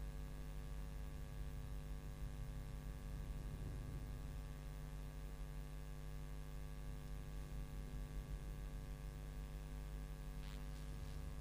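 Steady electrical mains hum: a low buzz with a stack of even overtones over faint room tone. Near the end come a few faint scratchy strokes of a marker writing on a whiteboard.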